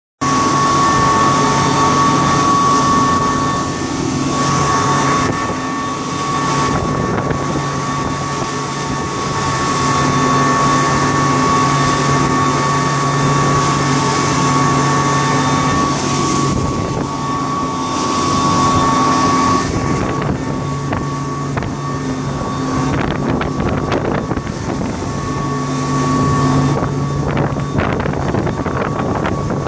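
Boston Whaler Conquest under way at speed on twin outboard motors, their steady whine over rushing water, with wind buffeting the microphone.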